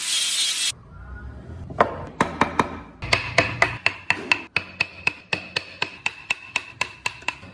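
A hammer tapping a carving chisel into wood in quick, even strikes, about three or four a second, each with a short metallic ring. Before the tapping begins, a loud rushing noise cuts off abruptly under a second in.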